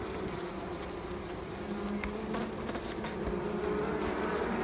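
Honeybee colony buzzing in an opened hive: a steady, even hum of many bees. A couple of faint knocks sound about two seconds in.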